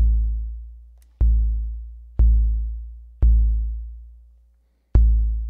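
AKAI Rhythm Wolf's analog kick drum voice, played five times at uneven spacing. Each hit is a sharp click followed by a deep boom that fades away over about a second and a half.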